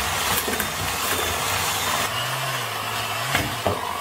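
Hand-held electric mixer with dough hooks running steadily while kneading a heavy yeast dough, the motor working hard against the stiff dough.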